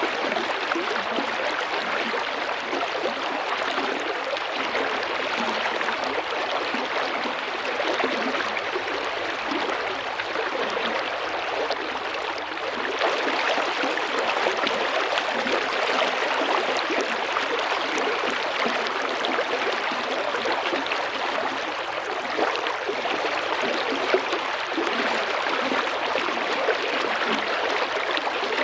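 Small river or stream flowing steadily over stones, a continuous babbling and gurgling of water.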